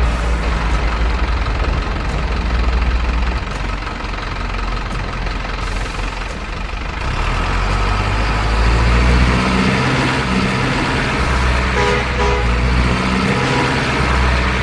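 Heavy truck engine sound running under the RC truck's drive, a steady low rumble that grows louder about seven seconds in.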